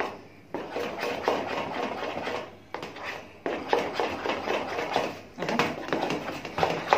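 A wet flour, salt and lemon-juice paste being stirred in a plastic bowl, worked smooth to break up lumps. It comes as a quick run of scraping, clicking strokes in several bursts with short pauses between them.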